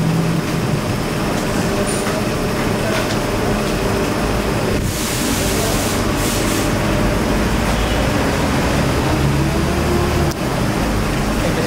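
Workshop machinery running with a steady low hum, with a burst of hissing about five seconds in.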